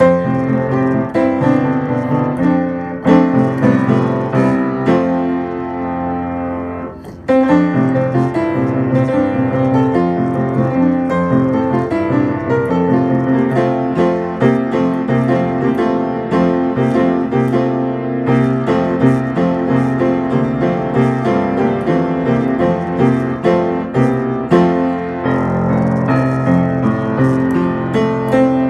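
Piano music, many notes in quick succession, which softens and breaks off briefly about seven seconds in before resuming.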